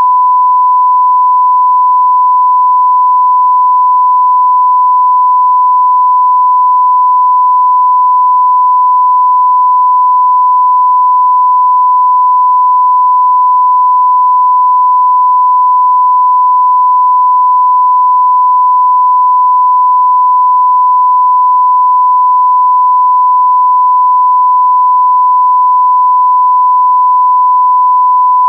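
A long, steady electronic beep: one pure tone at about 1 kHz, held at constant loudness without a break, like a censor bleep or test tone.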